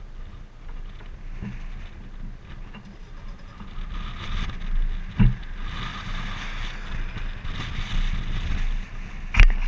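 Wind buffeting the microphone with a low, gusty rumble, and the hiss of highway traffic swelling as a car comes along the road. There is a short knock about five seconds in and a louder sharp knock near the end.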